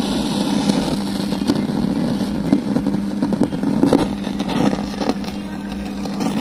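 Tower home theatre speaker, left in Bluetooth mode with nothing playing, giving out a steady low hum over a rough crackling noise, the crackling fault the repair sets out to cure.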